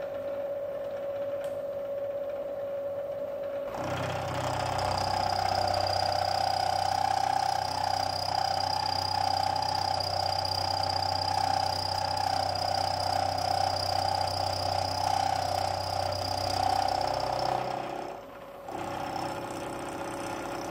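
Milling machine spindle running with a steady hum; about four seconds in a louder, harsher cutting sound begins as the gear cutter feeds through the pinion blank on a roughing pass. It cuts out briefly near the end, then starts again.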